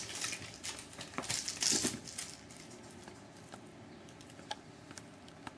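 Egyptian Mau kitten's claws scratching and gripping the sisal rope of a scratching post in quick, scratchy bursts through the first two seconds, then a few faint ticks.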